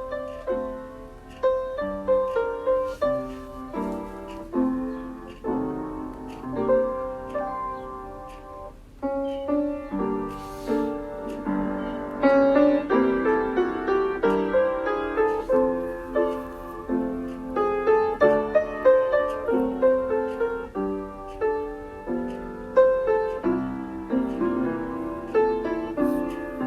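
Background piano music: a solo piano plays a flowing melody with chords.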